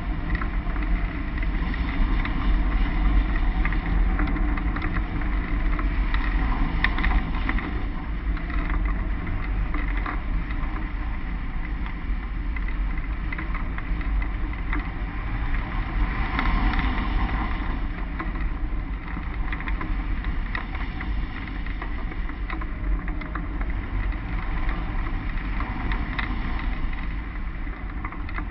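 Airflow rushing over a hang glider's wing-mounted camera in flight: a steady wind rumble and hiss on the microphone.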